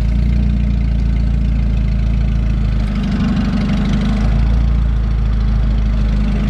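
A lifted Ford Tempo's engine runs steadily and loudly, with a slight change in its low tone about three seconds in.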